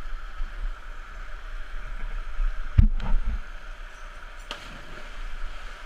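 Small cascade pouring into a rock pool, a steady rush of water. A heavy thump about halfway through, then a splash as a canyoneer jumps feet-first into the pool.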